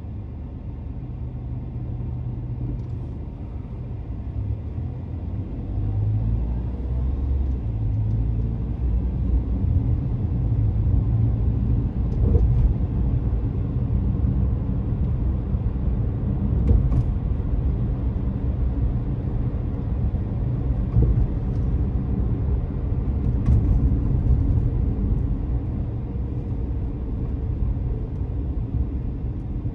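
Road and engine rumble of a car driving, heard from inside the cabin. The low rumble grows louder over the first several seconds and then holds steady, with a few faint clicks.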